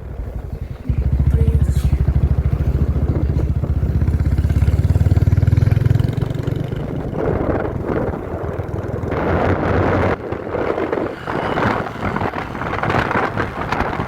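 Motorcycle engine running on the move, loud and fast-pulsing for the first several seconds, then easing off about six seconds in, with wind buffeting the microphone.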